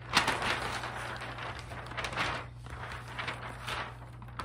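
Wrapping paper rustling and crinkling as a large sheet is unrolled off the roll and handled, easing briefly about halfway.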